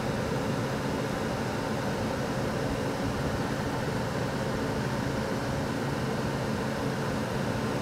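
Steady wind noise rushing on the microphone, with a faint low hum underneath.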